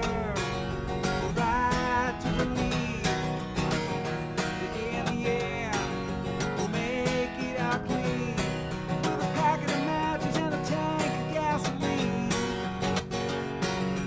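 Acoustic guitar strummed in a steady rhythm, with a bending melody line held over the chords.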